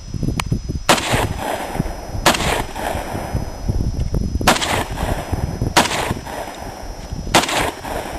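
Gunshots from a firearm fired one at a time: five single shots about one and a half to two seconds apart, not automatic bursts, over a low rumble.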